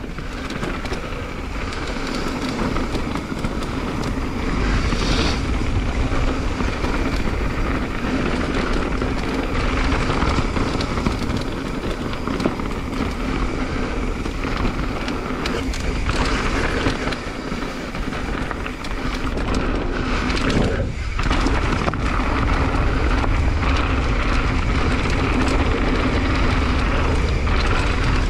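Mountain bike riding down a dirt trail: a steady rushing rumble of wind on the microphone and tyres on dirt, which drops away briefly about three-quarters of the way through.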